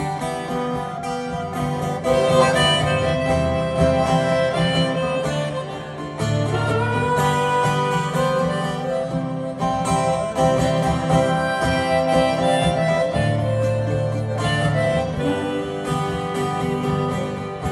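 Harmonica solo over strummed acoustic guitar, an instrumental break between verses of a live folk song.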